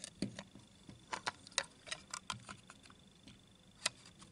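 Plastic clicks and taps as the grey plastic housing of an ARO radio module is handled and fitted onto the white plastic head of a Maddalena water meter: a scattering of short, sharp clicks, bunched in the first couple of seconds, with one louder click about four seconds in.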